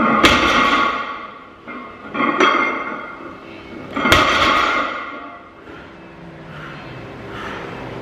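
A 220 kg loaded barbell touching down on a gym platform between deadlift reps: two sharp clanks with metallic ringing, about four seconds apart, and a lighter knock between them.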